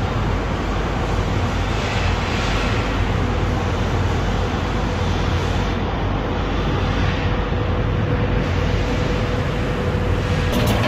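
Continuous almond roasting machine running: a steady low hum with a constant mid-pitched tone over an even rushing noise.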